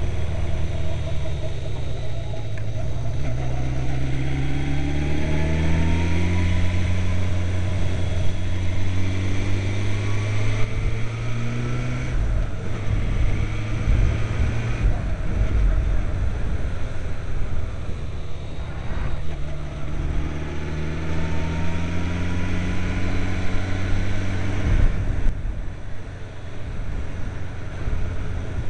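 Kawasaki Zephyr 550's air-cooled inline-four engine under way, rising in pitch as it accelerates twice, about two seconds in and again about two-thirds through, with steadier running and brief drops in between. A haze of wind and road noise runs under it.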